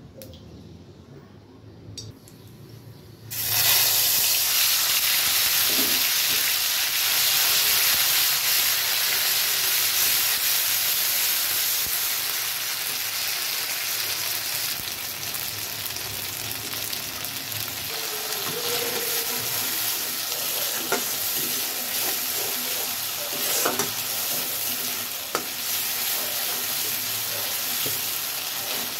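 For the first three seconds or so the sound is low, then a loud sizzle starts suddenly as the chopped onion mixture goes into hot oil in a metal karahi. The mixture then fries steadily while a flat metal spatula stirs and scrapes against the pan, adding scattered clicks.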